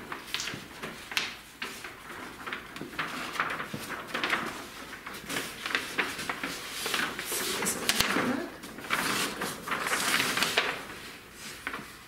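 A large folded paper template being unfolded and opened out, rustling and crackling on and off.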